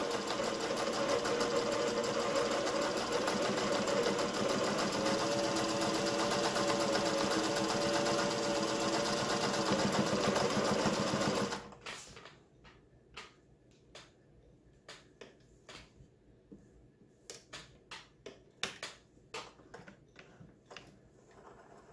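Singer 401A sewing machine running at a steady speed, stitching a cam pattern at a very short stitch length. It stops abruptly about twelve seconds in, and a few light clicks and taps follow.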